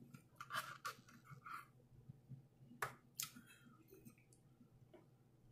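Close-up mukbang eating sounds: a few faint wet mouth clicks and smacks of chewing soft food taken from a plastic spoon, in clusters about half a second in and again around three seconds in.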